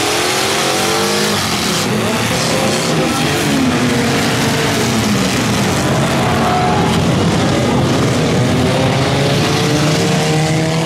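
A pack of derby cars racing away at the green flag, many engines revving together, their pitches rising and falling as the cars accelerate and lift around the track.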